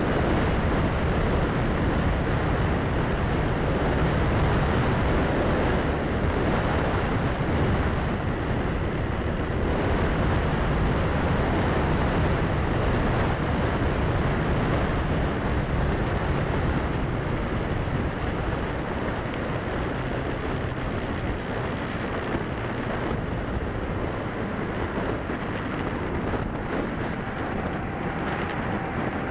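Wind rush on a handlebar-mounted camera mixed with the engine of a Honda Rebel motorcycle cruising on a paved road, a steady even noise. It gets somewhat quieter in the last third as the bike eases off.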